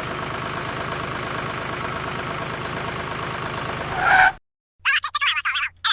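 Motor-vehicle engine running steadily at a constant pitch, swelling briefly about four seconds in and then cutting off abruptly.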